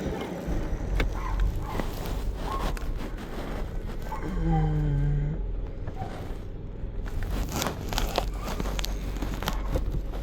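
Low steady vehicle rumble with scattered clicks and rustling handling noise, and a short voice-like hum about four seconds in.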